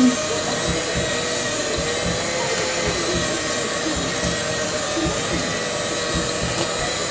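Electric hand mixer running steadily, its motor whining at an even pitch as the beaters turn through cake mixture in a bowl.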